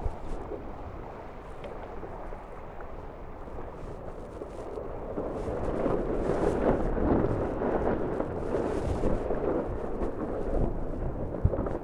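Wind and water rushing past a Tornado racing catamaran under sail: a steady rumbling hiss that grows louder about halfway through as the boat speeds up.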